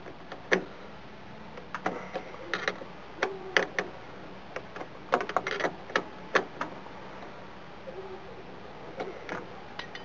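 Combination wrench tightening the clamp nut on a metal battery terminal: scattered metallic clicks and clinks, some in short clusters, as the wrench is worked back and forth on the nut.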